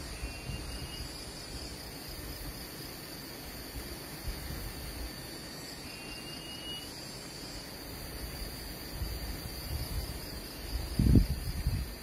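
A steady, high-pitched drone of insects, with two faint short rising whistles, one just after the start and one about halfway through. Wind rumbles on the microphone in the last few seconds, with a strong gust about eleven seconds in.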